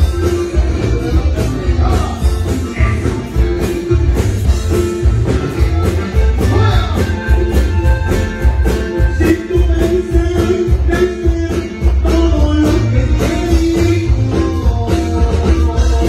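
Live norteño band music played loud through the stage sound system: accordion, acoustic guitar, electric bass and drum kit, over a steady drum beat.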